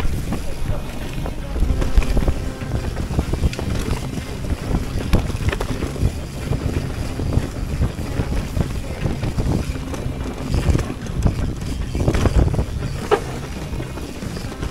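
Wind buffeting the action camera's microphone over the rumble and clatter of a mountain bike descending a rocky dirt trail, with tyres running over stones and many quick knocks and rattles from the bike.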